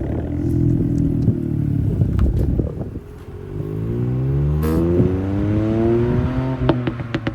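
Ford Fiesta ST Mk8's turbocharged 1.5-litre three-cylinder through a Milltek cat-back exhaust: the engine holds steady revs, drops back briefly about three seconds in, then the revs climb steadily for about three seconds. Near the end, as the throttle closes, the exhaust gives a quick cluster of sharp pops and crackles.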